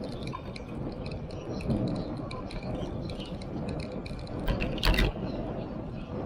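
Bicycle riding on asphalt: wind rumble on the camera microphone and tyre noise, with light clicking and rattling throughout. A sharp jolt with a thud comes twice in quick succession a little before five seconds in, as the wheels cross the seam at the end of a road bridge.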